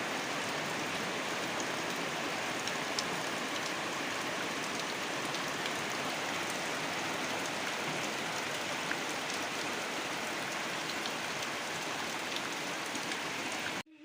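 Heavy rain falling steadily, with a few single drop ticks standing out from the hiss. The sound cuts off suddenly near the end.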